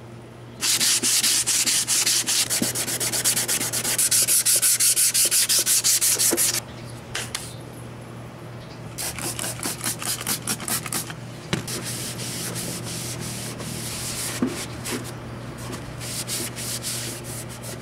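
Sandpaper, 120 grit, rubbed by hand over a plastic tail-light lens in rapid back-and-forth strokes for about six seconds, taking off the remaining old clear coat. After a short pause come softer rubbing strokes, with a cloth wiping the sanding dust off the lens near the end.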